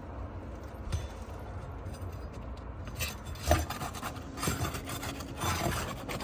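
Asphalt shingle being worked and pried loose from the roof. It scrapes and crackles as it breaks free, in repeated bursts over the second half, with a sharp snap about three and a half seconds in.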